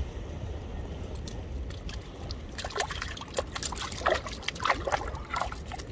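Sea water lapping and trickling among shoreline rocks over a low rumble of wind on the microphone. From about halfway there is a run of small splashes and clicks.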